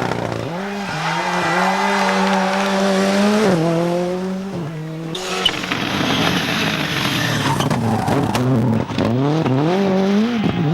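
Toyota Corolla WRC's turbocharged four-cylinder rally engine at full throttle. The revs hold high, then drop sharply twice at gear changes, and near the end climb again in several rising sweeps as the car accelerates hard.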